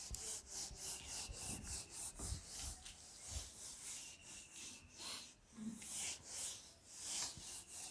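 Writing: a long series of short, scratchy strokes of a pen or marker on a writing surface, in irregular quick succession, as words are written out.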